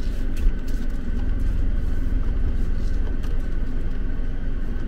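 Toyota Wigo driving slowly, heard from inside the cabin as a steady low rumble of engine and tyres, with a single thump about half a second in.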